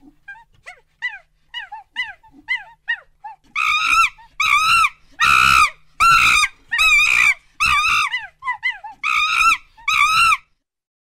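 A monkey calling: a quick run of short, high squeaks, then from about three and a half seconds in a series of about eight louder, longer cries, one of them harsher than the rest, stopping near the end.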